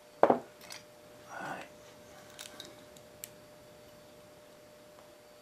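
Diagonal wire cutters snipping through an ignition wire: one sharp click about a quarter second in, followed by a few light clicks of the part and tools being handled.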